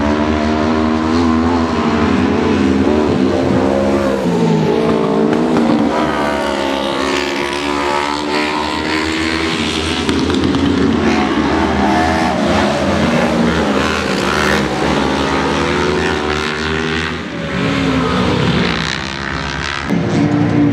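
Autocross race car engines revving hard and falling back between gear changes, rising and dropping in pitch again and again, with more than one engine heard at once at times.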